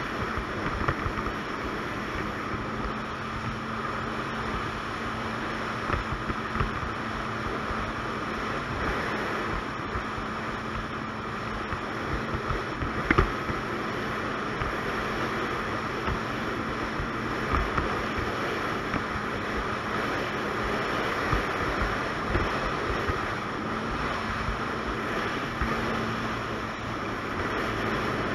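Ski-Doo Expedition 900 ACE snowmobile cruising at a steady speed, its three-cylinder four-stroke engine a steady drone under heavy wind rush on the microphone. A few short thumps come through, the loudest about halfway.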